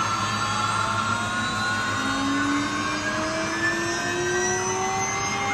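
Multi-spindle rotary CNC router running, its spindles and axis motors whining as several tones that glide slowly upward and shift in pitch, over a steady mechanical hum.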